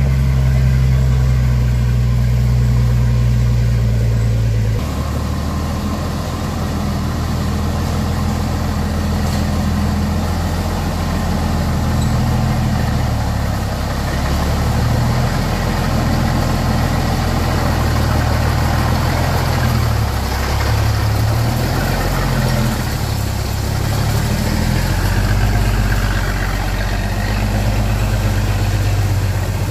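Vehicle engine running, holding a steady note at first; about five seconds in the note changes, and from then on it rises and falls as the engine works.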